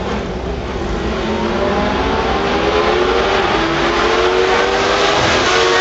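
A pack of open-cockpit sports-prototype race cars approaching one after another, their engines rising in pitch as they accelerate and growing louder as they near.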